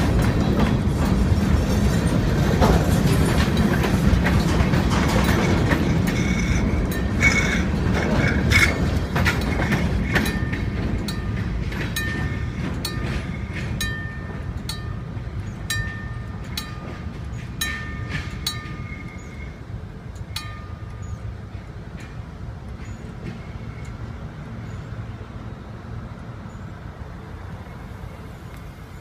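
Freight cars rolling past, wheels rumbling and clattering over the rail joints. The sound fades steadily as the train moves away, with brief high-pitched tones and sharp ticks coming and going in the middle.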